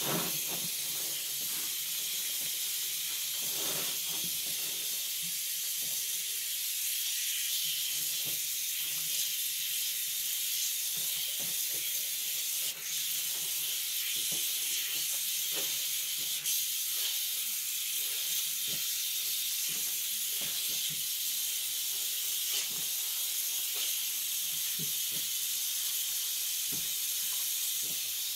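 A steady high-pitched hiss, with faint scattered ticks and clicks underneath.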